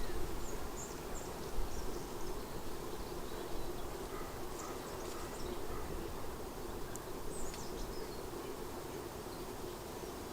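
Outdoor ambience: a steady low hum, with faint, short, high bird chirps scattered through it.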